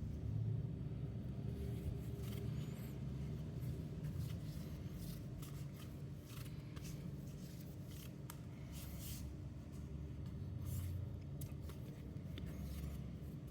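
Scattered light clicks, taps and rustles from objects being handled, over a steady low rumble.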